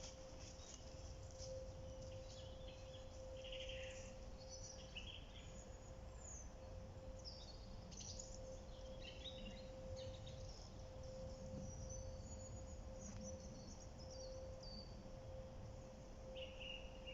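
Faint birdsong: scattered chirps and short trills from several small birds, over a low steady background rumble and a faint steady hum.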